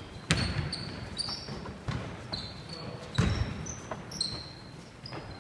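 Basketball bouncing on a wooden gym floor, four thumps roughly a second apart, with short high squeaks of sneakers on the floor between them.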